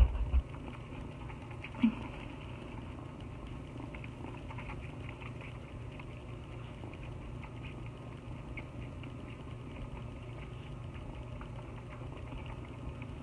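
A kitten suckling milk from a feeding bottle: a steady run of small, quick wet sucking clicks over a low hum. Two short bumps in the first two seconds.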